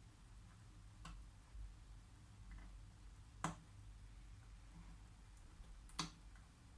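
Cardboard jigsaw puzzle pieces clicking as they are set down and pressed into place: three small sharp clicks, a faint one about a second in and two louder ones near the middle and near the end, over near-silent room tone.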